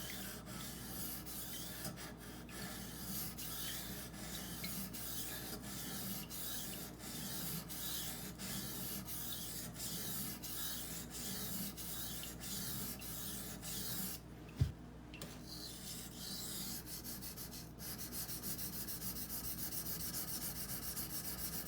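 A knife's 20CV steel blade being stroked over and over across a wet Norton 1000-grit water stone, giving a continuous gritty scraping. About two-thirds through, the strokes stop for a moment with a single low knock, then carry on quicker and more evenly.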